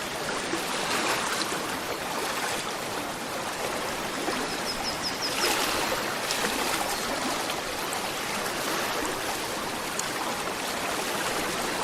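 A gentle river flowing and burbling steadily over stones. A short run of faint high ticks comes about four to five seconds in.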